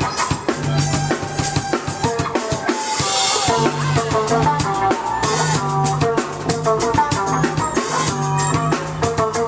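Live electronic-rock trio playing: a drum kit with kick, snare and rimshots keeping a fast, driving beat under an electric violin and keyboard, with a steady low bass line.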